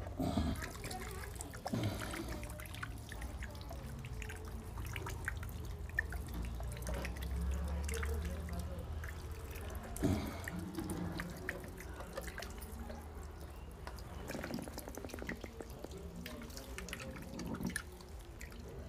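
Water dribbling and dripping from a small plastic bottle onto potting soil in a pot, with small irregular ticks and rustles of hands working the soil.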